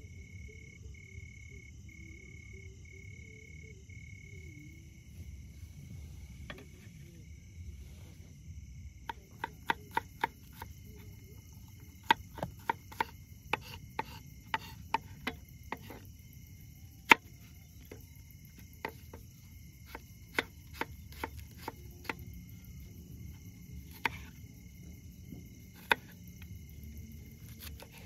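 Knife chopping cabbage and onion on a wooden cutting board: a run of sharp, irregular strikes that starts about nine seconds in and goes on, with gaps, until near the end. Crickets and other insects chirp steadily underneath, with a few pulsed trills at the start.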